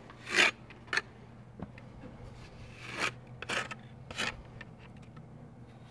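A handful of short scraping swishes, the loudest about half a second in: hands and a tool working in a plastic bucket and against the terracotta while a patch is wetted and readied for repair mortar.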